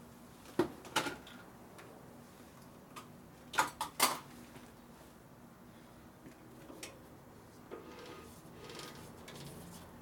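Short clinks and knocks of tools or parts being handled at the workbench: two about half a second apart near the start, and a quick run of three about three and a half to four seconds in, over faint room hum.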